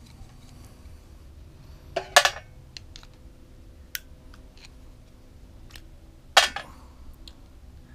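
Light metal clicks and clinks from a small screwdriver working the adjustment screws of a lawnmower carburetor held over a metal drip tray. There are two louder clinks, about two seconds in and about two seconds before the end, with a few faint ticks between.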